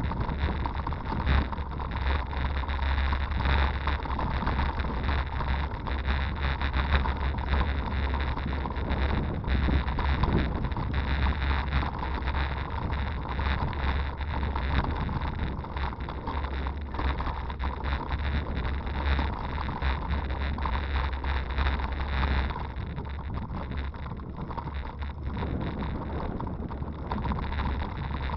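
Wind rumbling on the microphone of a bicycle-mounted camera as a hybrid bike rides along a canal towpath, with constant small rattles and knocks from the bike and mount jolting over the surface.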